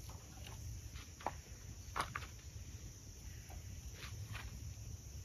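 Small wood fire burning in a portable grill, crackling with a few scattered sharp pops and snaps, the loudest about two seconds in.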